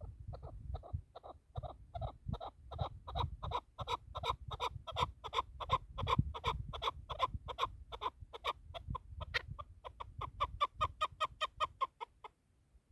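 Chukar partridge calling: a long run of clucking 'chuk' notes, about four to five a second, building in strength and then stopping abruptly near the end. A low rumble runs beneath.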